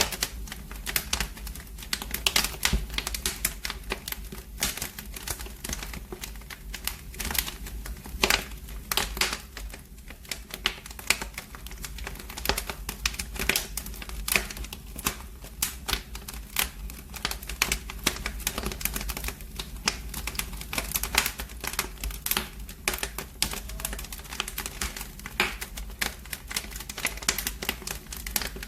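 Wood fire burning in a fireplace, crackling and popping with many irregular sharp snaps over a steady low rumble.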